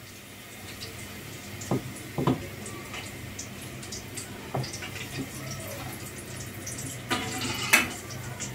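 Kitchen tap running, water being drawn into a container, with a couple of clinks about two seconds in and a louder rush of water near the end.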